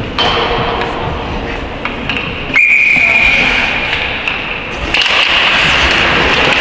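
Sports-hall game noise, then one long steady referee's whistle blast starting sharply about two and a half seconds in and lasting a little over two seconds. After the whistle the general hall noise grows louder.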